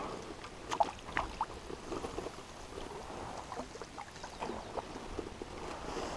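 River water gurgling and lapping, with an irregular patter of small splashes and blips.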